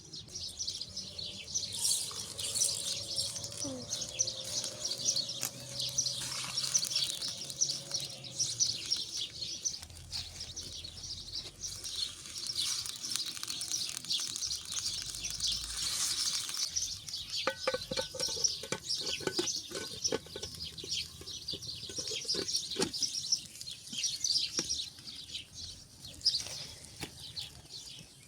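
Many small birds chirping continuously in a dense, high chorus. A little past the middle, a few seconds of quick taps or clicks join in.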